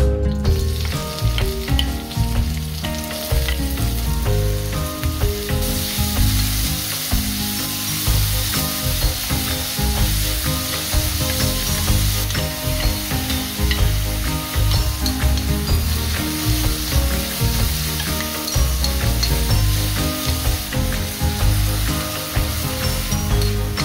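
Diced onion, scallion, garlic and peppers sizzling in hot chili oil in a wok as a spatula stir-fries them. The sizzle grows louder about six seconds in.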